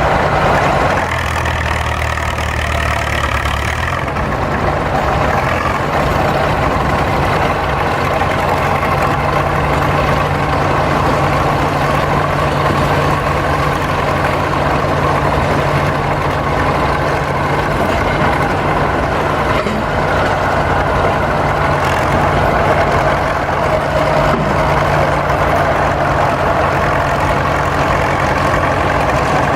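A heavy engine idling steadily, its low hum shifting briefly between about one and four seconds in.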